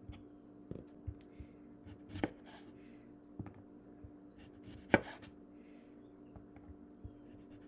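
Chef's knife slicing a cucumber into rounds on a bamboo cutting board: the blade knocks sharply on the board twice, about two and five seconds in, with a few fainter taps between. A faint steady hum lies under it.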